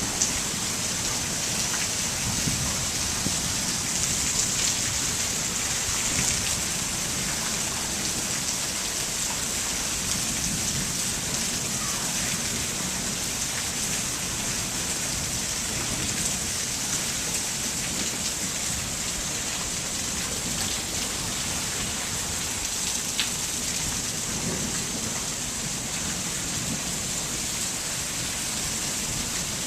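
Heavy monsoon rain pouring steadily, an even hiss of downpour on surfaces.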